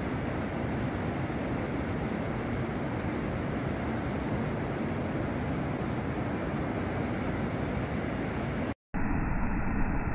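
Steady rush of water pouring over Rideau Falls. It drops out briefly near the end and comes back sounding more muffled.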